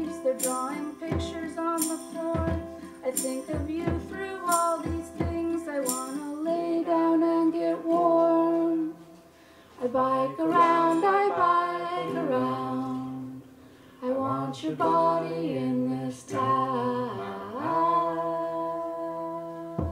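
A woman sings a slow song to her own ukulele. A tambourine is struck about once a second for the first six seconds, and the singing stops briefly twice.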